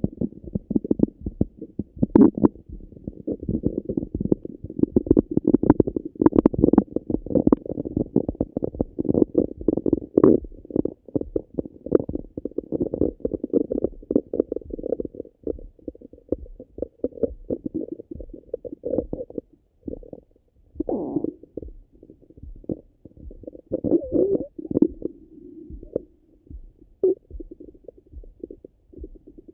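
Stomach and intestines gurgling and rumbling after a meal, heard through a Littmann stethoscope on the belly, which makes it sound close and muffled. A dense, crackling run of gurgles in the first half thins out to separate gurgles and squelches in the second half.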